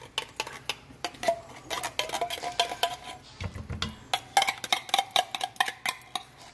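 A metal utensil repeatedly clinks and scrapes against a metal can as condensed cream of chicken soup is emptied out, with brief metallic ringing. There is a dull thump about halfway through.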